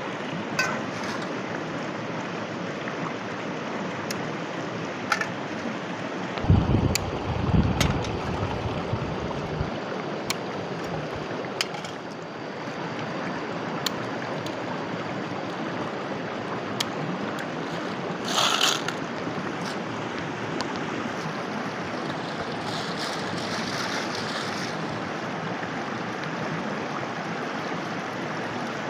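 Shallow rocky stream running steadily, with sharp clicks of a knife striking a stone as the tails are chopped off river snails. A low rumble of wind on the microphone comes about seven seconds in.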